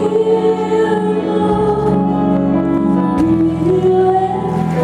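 Worship music with a group of voices singing long held notes.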